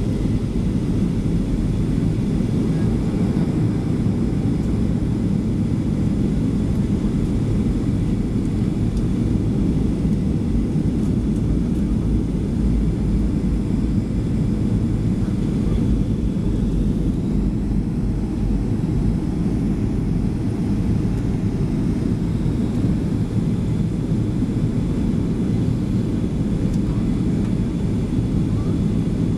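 Steady cabin noise of a Boeing 737 airliner in flight, engine and airflow heard from inside the cabin as an even, low rumble that does not change.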